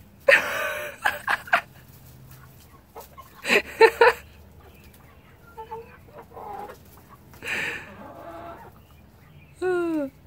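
Chickens squawking in several loud clustered bursts, with softer clucks in between and a short call that falls in pitch near the end.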